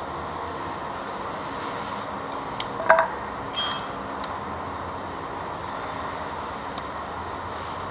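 A steady mechanical drone with two sharp metallic clinks, one about three seconds in and a second half a second later.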